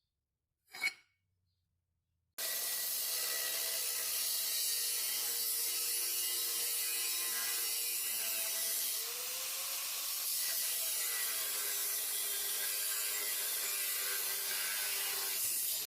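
A power tool cutting a bar of 1/4-inch mild steel: a steady, even grinding noise with a faint wavering tone, which starts abruptly a couple of seconds in after a single click and runs without a break until it cuts off.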